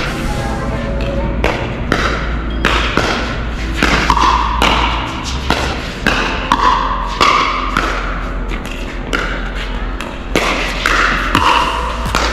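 Pickleball paddles striking the hard plastic ball in a fast rally, a sharp pop with each hit, coming irregularly about one to two times a second.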